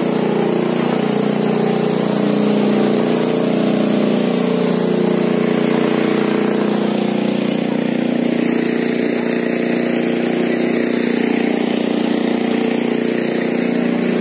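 Portable generator's small engine running steadily at an even pitch.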